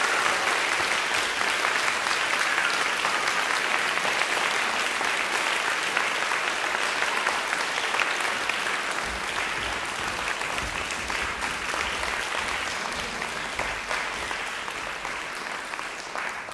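Audience applauding steadily, the clapping slowly thinning toward the end.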